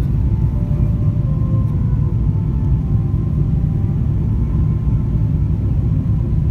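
Steady low rumble of a jet airliner's cabin noise from the engines and airflow, heard from a window seat while the plane descends on approach to land.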